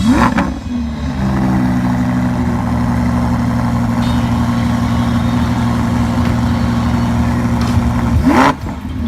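Sports car engine idling steadily, blipped to a quick rev once at the start and again near the end; each rev rises sharply and falls straight back to idle.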